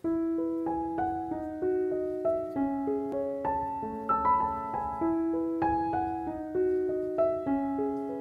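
Background piano music: a flowing line of single struck notes that begins abruptly.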